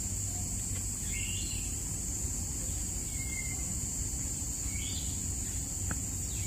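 A steady high-pitched insect drone with a few short bird chirps over it, above a low outdoor rumble.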